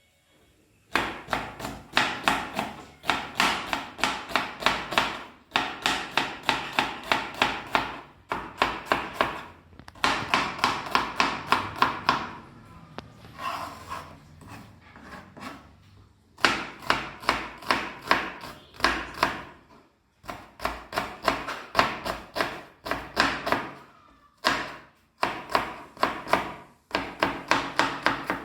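Kitchen knife chopping on a cutting board in quick, even strokes, several a second, in runs of a few seconds with short pauses between them.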